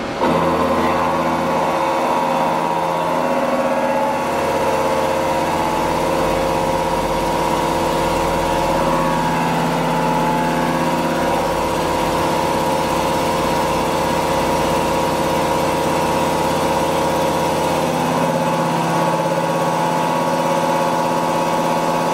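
The horizontal spindle of a CNC machining center is cutting metal: a steady machining whine and hum made of several held tones. It starts abruptly at the beginning, and a low rumble underneath drops away near the end.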